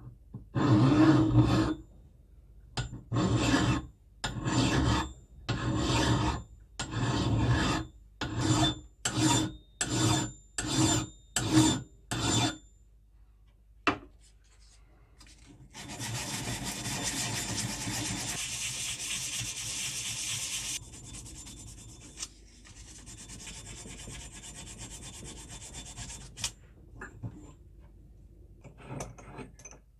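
Flat hand file rasping on the steel head of a leather-working hammer held in a vise: about a dozen push strokes, long at first and then shorter and quicker. This is the hammer's rusty, pitted steel being filed clean. Later comes a steadier rough rubbing noise lasting about ten seconds, louder for its first half.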